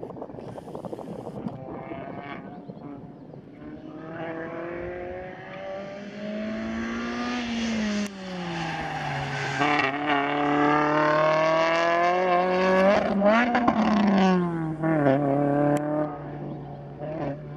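Renault Clio RS's four-cylinder engine, faint at first and louder as the car comes nearer. The revs climb, drop back, hold and then climb and fall again as it accelerates, brakes and changes gear through the corners.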